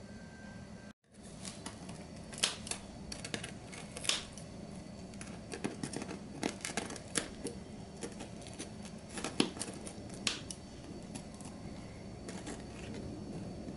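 Kitchen shears snipping butcher's twine on a roasted pork shoulder: a run of irregular sharp snips and clicks, after a brief silent gap about a second in.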